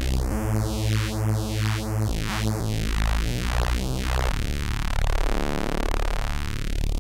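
Bass patch from a home-built analogue synthesizer, a few held low notes played from a keyboard. A hollow phasing sweep rises and falls over the notes, quickly at first and more slowly near the end.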